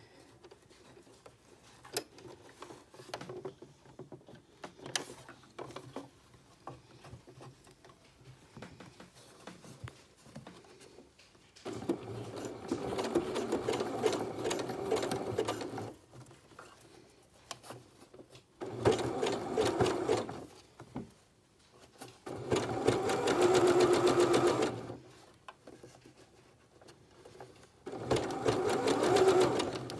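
Domestic computerised sewing machine running in four short spurts with pauses between, zigzag-stitching elastic and fabric binding together. Light fabric handling is heard in the quiet first ten seconds or so.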